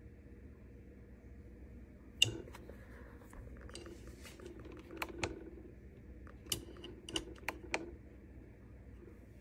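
A series of sharp clicks and taps of small hard objects being handled. The loudest is a single click about two seconds in, followed by a cluster of clicks later on.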